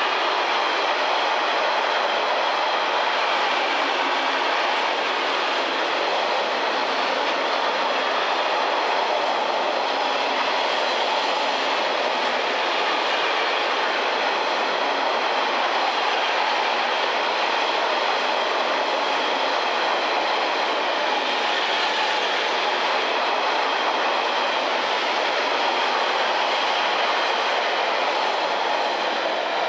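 Freight train of enclosed double-deck car-transport wagons rolling past, a steady, unbroken rush of wheel and rail noise.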